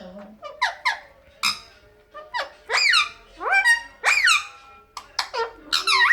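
Indian ringneck parakeet calling: a quick series of about ten short, shrill squawks, each sweeping sharply upward in pitch.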